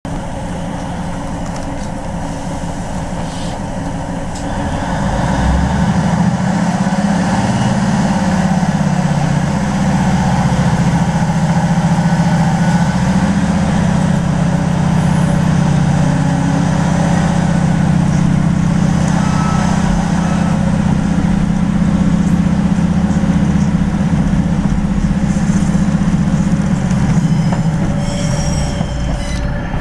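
Class 156 diesel multiple unit's Cummins diesel engine pulling away under power, heard from inside the carriage. It grows louder and rises in pitch about five seconds in, then holds a steady note, with wheel-on-rail noise over it.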